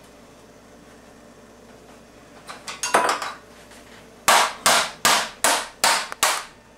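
Metal cake pan being banged: a few light knocks, then about four seconds in six sharp strikes in quick succession, to knock the baked cake loose from the pan.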